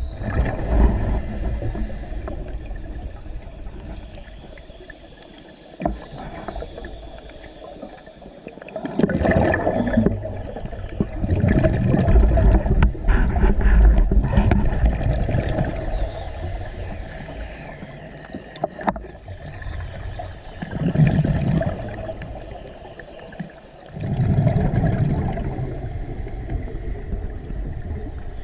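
Scuba diver breathing through a regulator underwater: a short airy hiss on each inhale and a low, gurgling rumble of exhaled bubbles, about three slow breaths.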